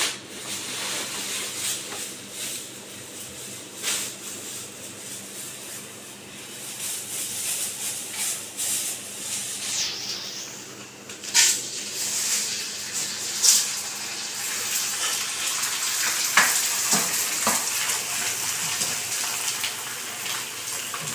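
Sliced onions frying in oil in a pan on a gas hob, a steady sizzling hiss broken by a few sharp clicks and scrapes of a utensil against the pan.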